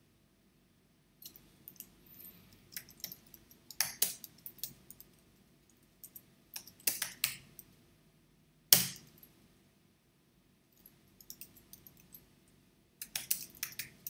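Typing on a computer keyboard: bursts of key clicks with short pauses between words and a few louder strikes, the sharpest a little past the middle.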